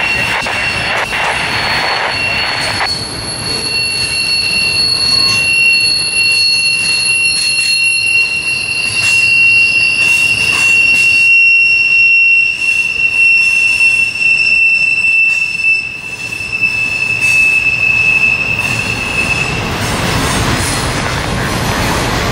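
Double-stack container freight train passing, its wheels giving a long, high, steady squeal against the rails as the cars round a sharp curve. The squeal comes over a continuous rumble and clatter of the cars, thins out about three seconds in, and dies away near the end.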